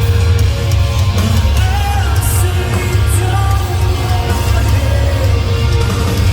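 A heavy rock band playing loud, distorted guitars over a heavy, booming low end, with a sung vocal melody on top.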